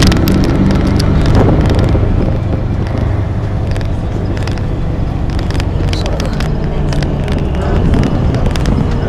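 Moving city bus heard from inside the passenger cabin: a steady low engine and road rumble with frequent rattles and clicks, and a faint whine that slowly drops in pitch in the second half.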